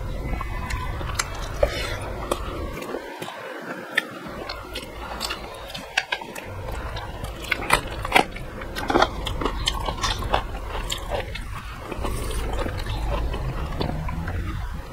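Close-miked mouth sounds of eating rice and vegetables by hand: chewing, smacking and sharp crisp bites, the loudest cluster about eight seconds in as a raw green chili is bitten.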